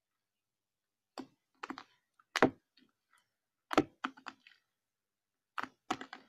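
Irregular sharp clicks and pops from hands kneading slime in a clear plastic container, about eight in all, starting about a second in, with the two loudest near the middle.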